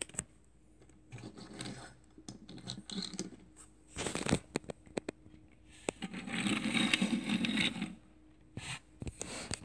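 1970s die-cast toy vans being rolled and moved by hand on a hard tabletop: the small wheels and metal bodies scrape, with sharp clicks and knocks as they are picked up and set down. The longest, loudest scraping comes near the end.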